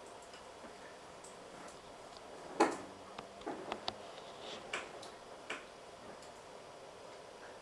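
Keys being pressed on a computer keyboard: a handful of short, irregular clicks, the loudest about two and a half seconds in, over a faint steady hiss.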